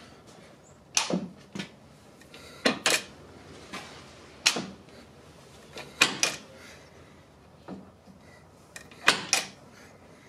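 Harley-Davidson Milwaukee-Eight transmission being shifted up through the gears into sixth with the engine off: a dozen or so sharp metallic clicks and clunks, some in quick pairs, at uneven intervals.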